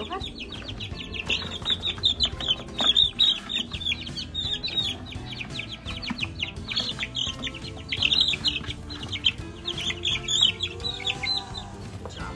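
Young chicks in a brooder peeping nonstop, a dense run of short, high, falling cheeps.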